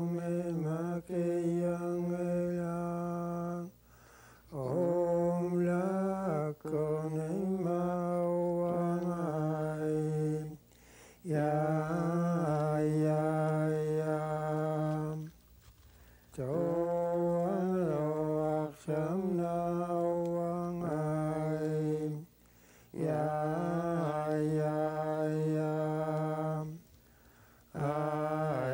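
Inuit ajaaja song sung by a single unaccompanied voice. It moves in phrases of a few seconds with short breaths between them, holding long notes that step up and down in pitch.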